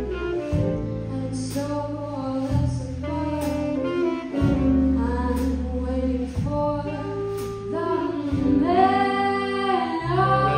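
Small jazz combo playing live: a female vocalist singing with saxophone over piano, bass and drums, the cymbal struck about once a second. Near the end the voice holds a long note that bends in pitch.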